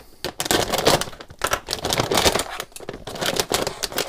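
Packaging crinkling and rustling in irregular crackles as a small FPV racing quadcopter is unpacked from its box.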